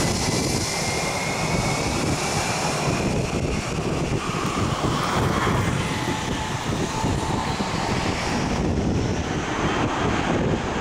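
Airbus A320's twin jet engines running at low taxi thrust as the airliner rolls away: a steady rumble and hiss with a faint whine, the high hiss falling off about nine seconds in.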